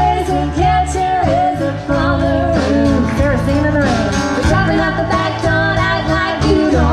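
Live country band music: guitar and bass with singing.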